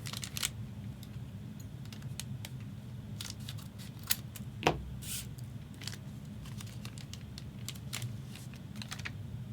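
Trading cards being handled and flipped through one by one: a string of light, irregular clicks and short slides, with a sharper knock about four and a half seconds in, over a steady low hum.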